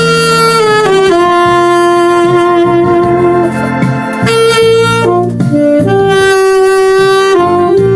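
Alto saxophone playing a slow song melody in a plain, natural tone without added effects: sustained notes that change about once a second, with one long held note in the middle.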